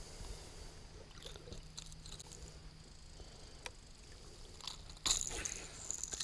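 Faint clicks and scrapes of fishing pliers and lure hooks as a lure is worked free of a northern pike's mouth, with a louder scrape about five seconds in.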